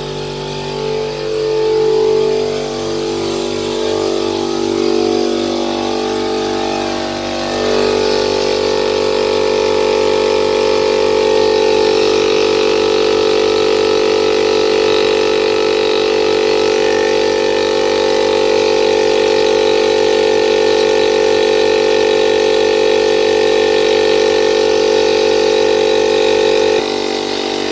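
Aldi oil-lubricated air compressor starting and running continuously, its first run after an oil change with the crankcase freshly refilled. The pitch wavers for the first several seconds, then settles into a steady run, and the sound dips slightly in level near the end.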